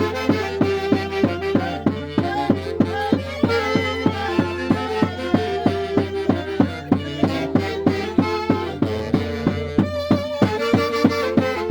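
Santiago dance music from Peru's Mantaro Valley: a violin-led melody over a steady, even drum beat.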